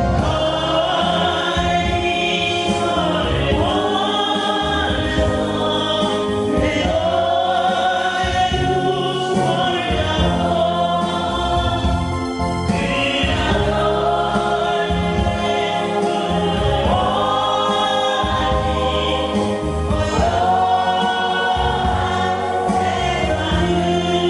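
A group of voices singing a Korean ballad together over an instrumental backing track, in long held phrases.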